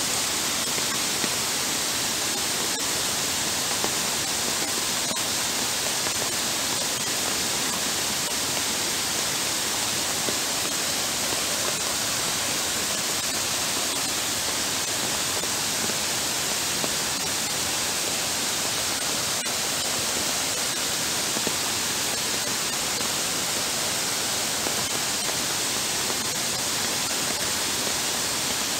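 Heavy downpour with floodwater running over a paved path, heard as a steady, dense hiss of rain and rushing water.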